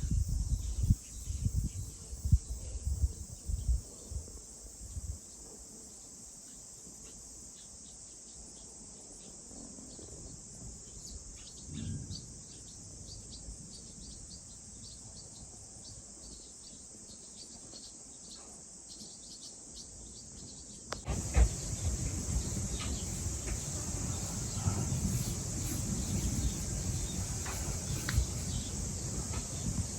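Outdoor summer ambience: insects keep up a steady high chirring, with scattered short bird chirps. Low rumbles and thumps come and go in the first few seconds, and about two-thirds of the way in the sound jumps louder, with a low rumble under the insects.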